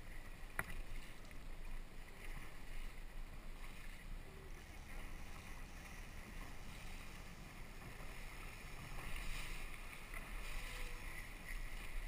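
Outboard motor of a small rigid inflatable boat running under way, with water rushing along the hull. There is a single click about half a second in, and the sound grows louder about nine seconds in as the boat throws up more spray.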